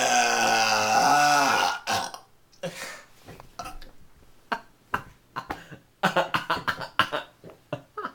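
A man's long, loud burp lasting about two seconds, with a pitch that wavers and dips, brought up by chugging a can of carbonated ginger ale. After it come a few short, scattered sounds.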